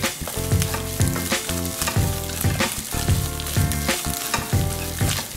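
Fried rice sizzling in a nonstick frying pan while it is stirred and turned with a wooden spatula, with regular strokes about twice a second. Background music plays along with it.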